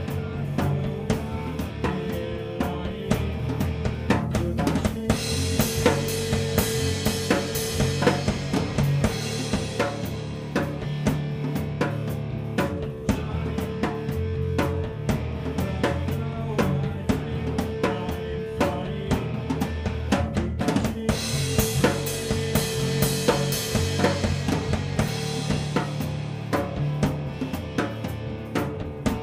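Acoustic drum kit played as a rock groove, with bass drum, snare and rimshots, opening into heavy cymbal crashes about five seconds in and again around twenty-one seconds in. The drumming is a rehearsal of the drum part for a new song.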